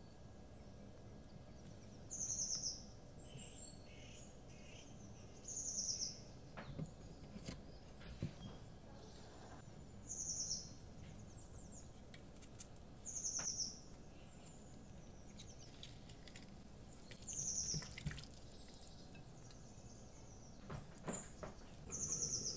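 Recorded wild birds on a winter morning: a small bird repeats a short, high, quick chirp phrase about every three to four seconds, six times, over a faint steady background hiss.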